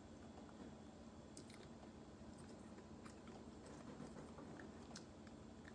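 Faint close-up chewing with scattered small mouth clicks, over a low steady hum.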